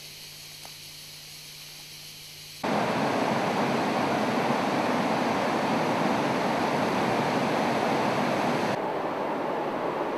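Rushing water of cascading falls, a loud even roar that starts suddenly about two and a half seconds in after a faint background with a low hum. Near the end the rush turns softer and duller.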